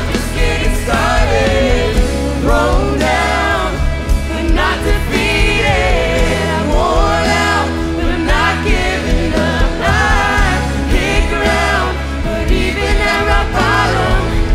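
Live worship band playing a contemporary Christian song: female lead vocals with a second female singer, over acoustic guitar, electric bass, piano and drums.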